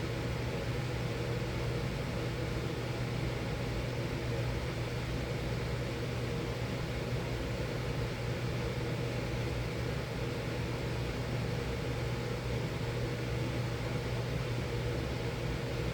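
Miller E3 electric furnace running: its blower gives a steady low hum with a constant rush of air, unchanging throughout.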